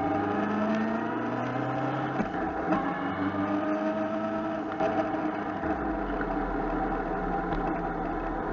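Motorcycle engine accelerating through the gears under wind and road noise. Its pitch climbs, drops at a gear change about two seconds in, then climbs again.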